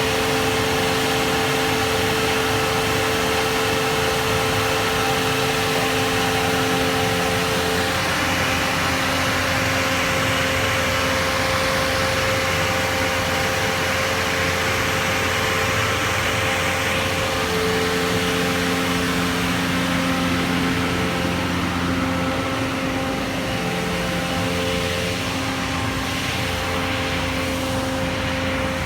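An engine running steadily, with a constant droning hum whose pitch shifts slightly about two-thirds of the way through.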